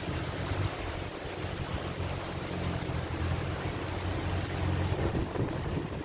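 Damaging storm winds rushing steadily through the trees, with gusts buffeting the microphone in an uneven low rumble.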